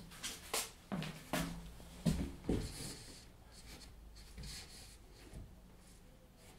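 A framed picture being handled against a wall, with about five light knocks in the first two and a half seconds, then fainter scraping and rubbing.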